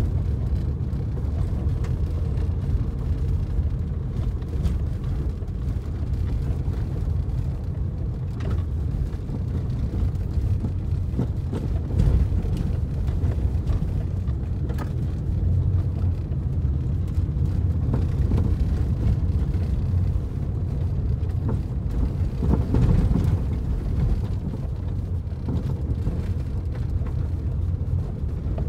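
Car driving on a gravel road, heard from inside the cabin: a steady low rumble of tyres and engine, with a few small knocks from the road surface.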